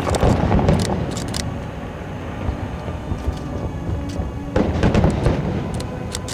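Aerial fireworks bursting: deep rumbling booms near the start and again about two thirds of the way through, with crackling, over music.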